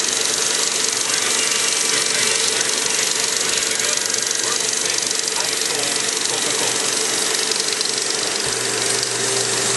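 DeVry XD 35mm film projector running steadily, its motor and film-drive mechanism pulling film through the gate with a continuous mechanical clatter and a steady hum.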